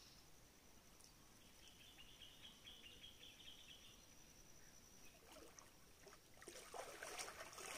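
Near silence: faint outdoor ambience with a thin steady high whine, a faint rapid trill lasting about two seconds, and soft rustling starting near the end.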